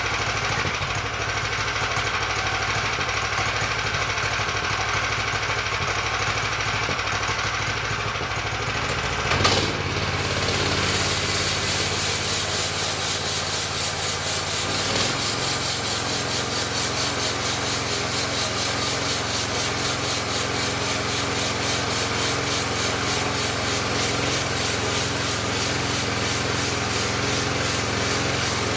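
Homemade bandsaw mill's engine running, then about ten seconds in the blade goes into the log and saws through it: a louder rasping cut over the engine that pulses about twice a second.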